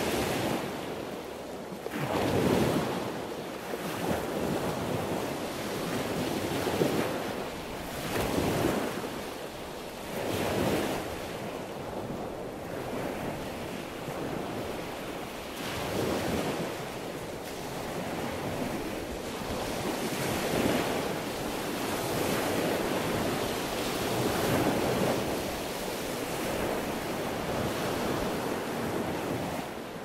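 Sea waves breaking and washing, a steady rush that swells and ebbs in surges every two seconds or so at first, then in slower, longer swells.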